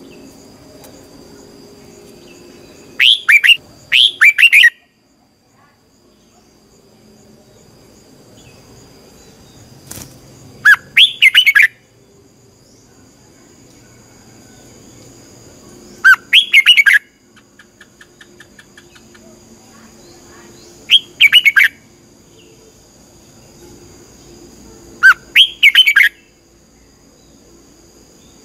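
Red-whiskered bulbul singing: five short, loud phrases of quick whistled notes, each about a second long and several seconds apart.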